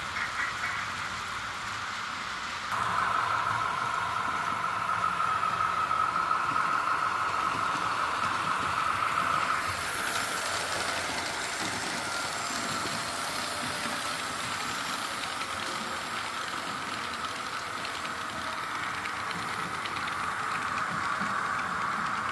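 Märklin H0 model train running on the layout: a steady whine from the locomotive's electric motor over wheel noise on the track. It gets louder about three seconds in and drops back a little about ten seconds in.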